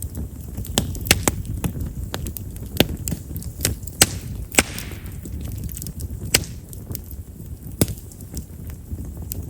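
Chestnut firewood burning in an open bonfire, crackling with frequent, irregular sharp pops over a low steady rumble of flame. Chestnut is known as a popping wood because of its large vessels.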